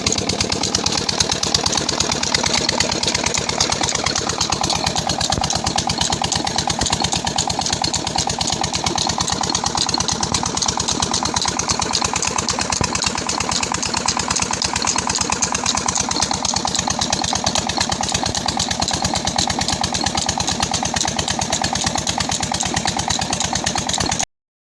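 18 HP KAM diesel 'Peter' engine running steadily after its rebuild, with a fast, even beat; the sound cuts off suddenly near the end.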